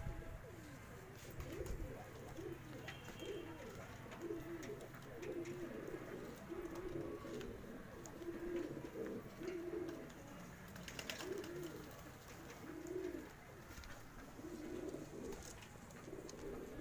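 Fancy domestic pigeons cooing, one short coo after another throughout.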